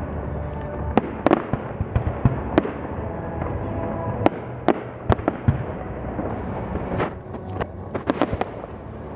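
Fireworks display: irregular sharp bangs and crackling shell bursts over a steady low rumble, with a quick cluster of cracks near the end.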